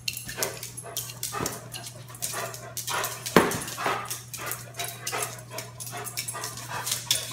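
A dog giving short barks and whines, the loudest about three and a half seconds in, over a steady low hum.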